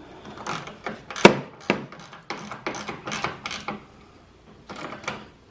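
Irregular clicks and knocks of a hand tool and screws against a plastic headlight assembly as its mounting screws are driven in, with one sharp knock about a second in.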